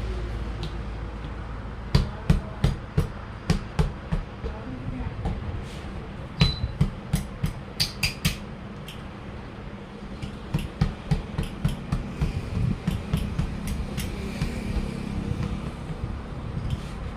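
Hammer blows on a truck wheel during a tyre change: runs of sharp strikes, about three a second, with short pauses between the runs.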